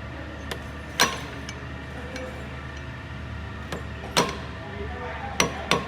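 Hand tools clinking and knocking on metal car parts during gearbox removal: a few separate sharp knocks with a short ring, about a second in, the loudest about four seconds in, and two close together near the end, over a steady low hum.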